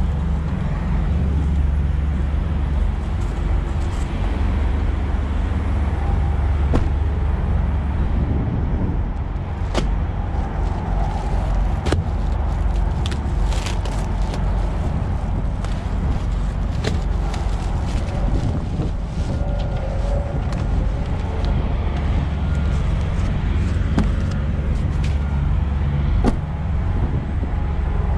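Semi-truck diesel engine idling with a steady low rumble. Scattered knocks and clatter, mostly in the middle and later part, come from a tarp being handled on a steel deck plate.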